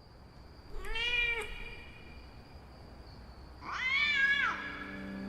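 Cat meowing twice: a short meow about a second in, then a longer, louder meow near the end, each rising and falling in pitch.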